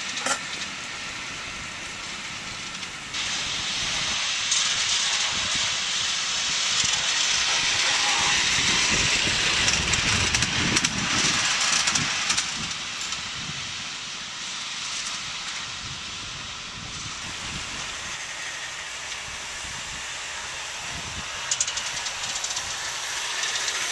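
3-1/2 inch gauge CPR Hudson live steam model locomotive running, with a steady hiss of steam that swells loudest for several seconds about a third of the way in.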